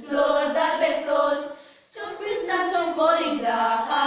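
A group of teenage girls singing a traditional Romanian Christmas carol (colindă) unaccompanied. The singing breaks off briefly for a breath just before two seconds in, then the next phrase begins.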